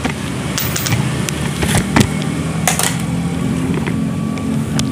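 A steady low mechanical hum, with a few light clicks and knocks scattered through it.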